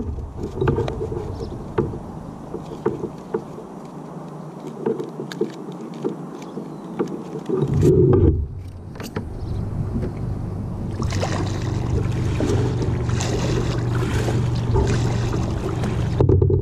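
A small boat on a pond: irregular knocks and clicks against the hull with water sounds, then a steadier noise with a low hum from about eleven seconds in.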